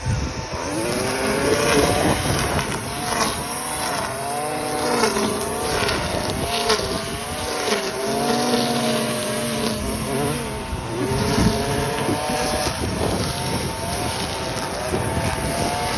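Gas string trimmer's small two-stroke engine running, its pitch rising and falling again and again as the throttle is squeezed and eased.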